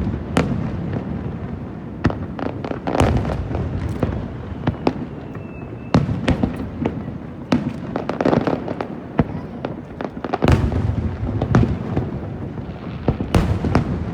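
Aerial fireworks shells bursting in quick succession: sharp bangs about one or two a second over a continuous low rumble, with a dense, loud cluster of bursts about ten and a half seconds in.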